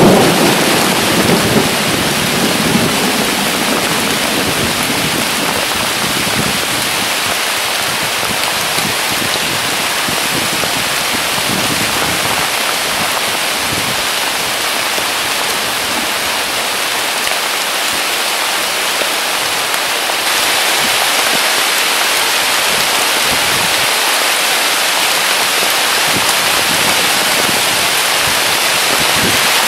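Heavy rain pouring down in a steady, loud hiss. A low rumble of thunder dies away in the first few seconds, and about two-thirds of the way through the rain abruptly gets louder.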